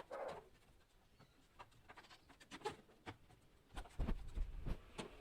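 Handling clatter during a washing machine repair: scattered light clicks and taps, then a few heavier low thumps about four seconds in.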